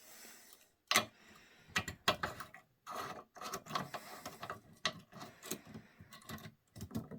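Aluminum canteen and water bottle being handled: irregular clicks, knocks and light rattles.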